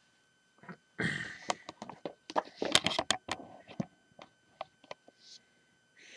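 Handling noise: a quick run of sharp clicks and light knocks with some rustling about a second in, then a few scattered clicks, as things are moved about on a tabletop.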